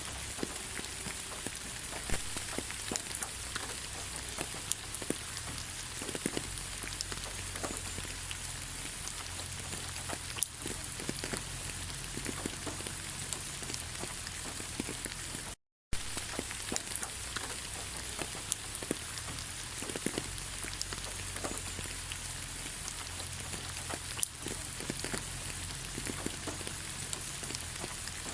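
Steady rain falling on a forest: an even hiss dotted with the ticks of single drops. Once, a little over halfway through, the sound cuts out for a fraction of a second.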